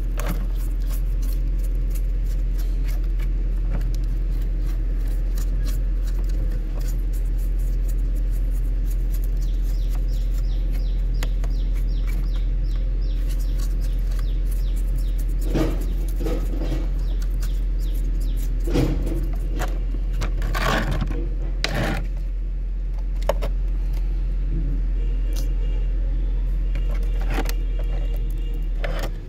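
A small brush scrubbing dirt from the plastic underside of a toy remote-control excavator, with scattered clicks and scrapes as the plastic parts are handled, the busiest stretch in the second half. A steady low hum runs underneath.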